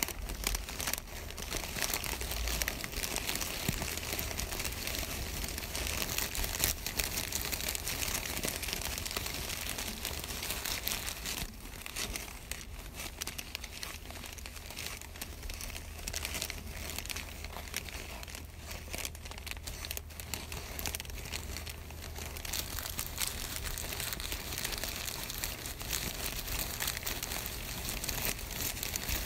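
Continuous dense crinkling and crackling noise, made of many tiny irregular clicks, with no break.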